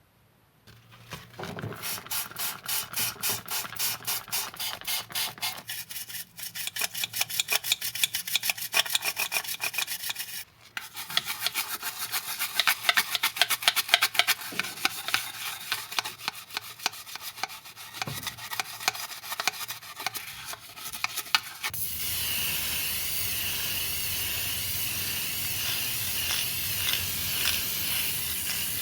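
Rhythmic rasping strokes of hand sanding or filing, about three strokes a second at first and quickening later. About three-quarters of the way in it changes to a steady hiss.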